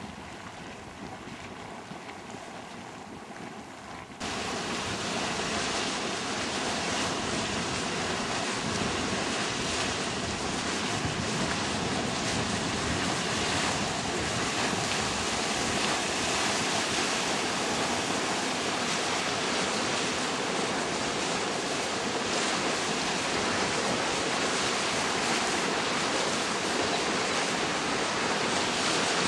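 Hot-spring geyser boiling and spouting: a steady rushing hiss of water and steam. It is fainter at first and jumps suddenly louder about four seconds in, then holds steady.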